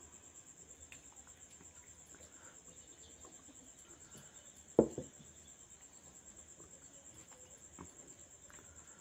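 Fingers mixing rice by hand with faint soft squishes and small ticks, and one sharp knock about five seconds in. A steady, finely pulsing high-pitched trill runs underneath.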